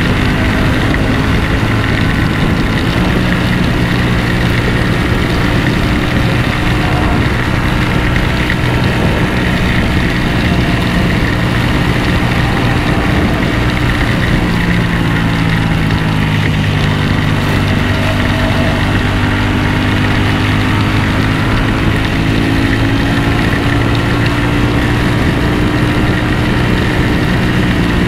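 Ducati V4 motorcycle engine running steadily, its pitch drifting slightly up and down, under a steady rushing noise.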